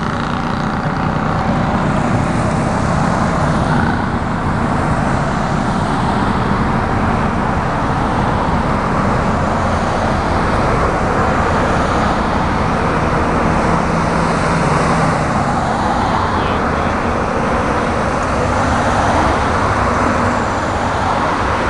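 Cars driving past on the road, a steady noise of tyres and engines.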